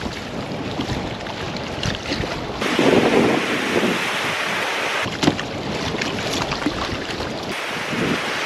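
Small waves breaking and washing up a sandy beach, with wind on the microphone, alternating with water splashing around a kayak and its paddle out on choppy water. The sound switches abruptly between the two a few times.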